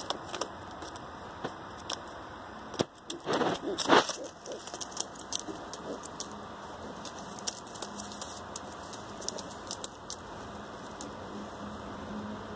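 Oriental Roller pigeons shuffling on newspaper in a wire cage: scattered light clicks and paper rustling, with a louder brief flurry about three to four seconds in.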